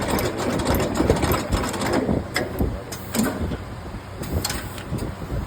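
Double-sided motor stator lacing machine running, with a steady mechanical clatter and irregular sharp clicks from its lacing mechanism.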